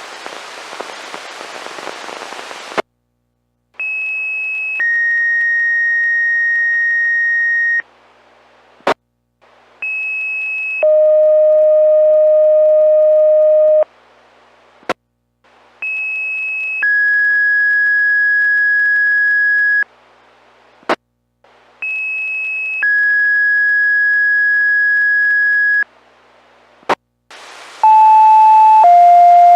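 Two-tone sequential fire pager alert tones received over a low-band VHF radio, sent to set off fire department pagers. Five pairs sound in turn, each a short higher tone of about a second followed by a steady lower tone of about three seconds. Sharp squelch clicks and brief bursts of radio hiss come between the pairs.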